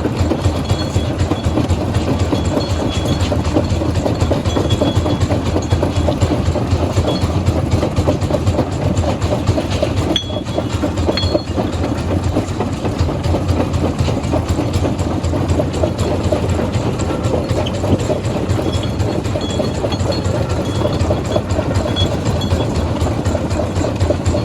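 Heavy rock-crushing machinery running: a steady low engine drone under a dense, continuous clatter of rock, with a short dip about ten seconds in.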